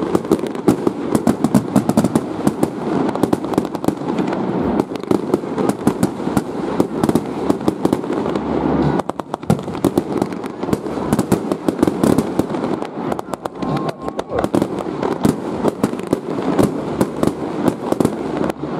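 Aerial fireworks shells bursting and crackling in a dense, continuous barrage, many reports a second, with a brief lull about nine seconds in.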